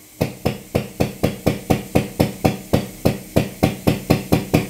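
Hydraulic hand pump being worked to build pressure in a cylinder, clacking in a steady rhythm about four times a second.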